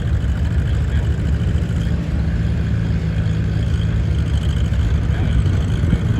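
Tractor engine running steadily at a constant speed, with an even low pulsing drone.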